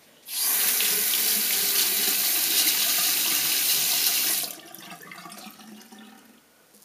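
Bathroom sink tap running hard into the basin for about four seconds, then turned off, followed by a couple of seconds of quieter splashing and dripping.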